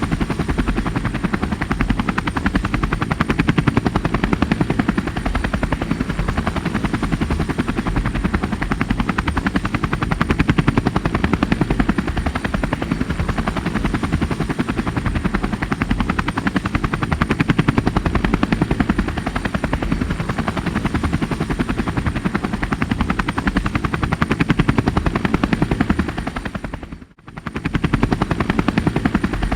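Rescue helicopter running steadily with continuous rotor-blade chop. The sound cuts out briefly near the end, then resumes.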